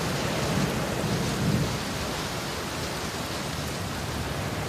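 Steady hiss of rain with low rumbles of thunder, the rumbles stronger in the first second or so.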